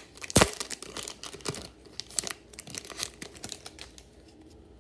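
Foil trading-card pack wrapper crinkling and tearing as it is ripped open and the cards are pulled out, with a sharp crackle about half a second in; the rustling thins out near the end.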